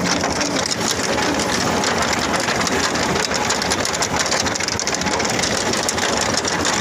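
Tractor-drawn potato digger at work: a dense, steady rattle of the elevator's steel rod chain shaking soil and potatoes, over the running tractor engine.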